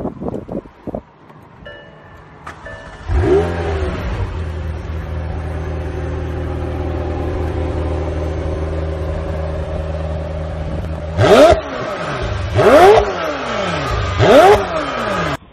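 A McLaren supercar's engine starts about three seconds in with a short flare of revs, then idles steadily. Near the end it is blipped three times in quick succession, each rev rising and falling, before the sound cuts off suddenly.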